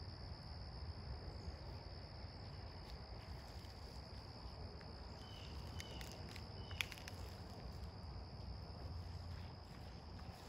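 Steady high-pitched insect chorus, one unbroken drone, over a low rumble. A few faint short chirps and a sharp click come just past the middle, the click the loudest moment.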